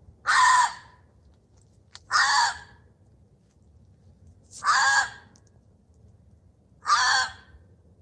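Recorded gray fox vocalization: four short, harsh calls about two seconds apart, over a faint low hum.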